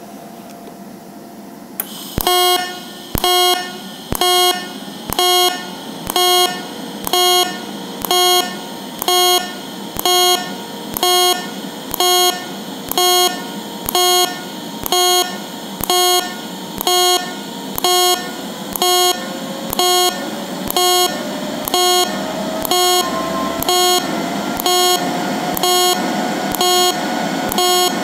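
DC TIG welding arc in stitch mode on an HTP Independence 210 AC/DC, switching on and off automatically about once a second. Each half-second arc-on gives a buzzing tone, with a hiss between pulses. The pulsing starts about two seconds in.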